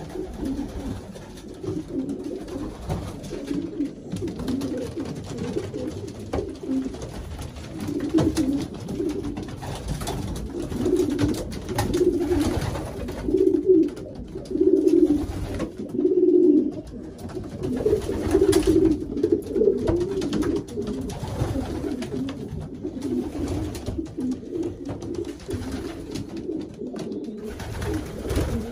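A loft full of racing pigeons cooing: many low coos overlapping without a break, loudest in the middle stretch, in the close echo of a small wooden loft.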